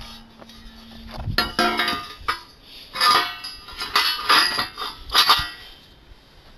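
Galvanised steel column-formwork frames clanking and clinking against each other and the floor as they are handled. A steady ringing note sounds through the first two seconds, followed by several clusters of metallic clinks about three, four and five seconds in.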